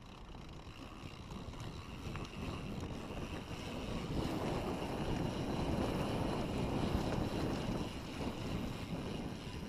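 Wind rushing over the microphone with mountain bike tyres rolling on a dirt trail, a steady rushing noise that swells louder from about four seconds in and eases a little near the end.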